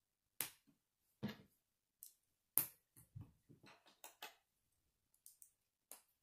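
K'nex plastic rods being pushed and snapped into a connector hub by hand: a string of short, sharp plastic clicks and light rattles, the loudest about two and a half seconds in, with a quick run of them soon after.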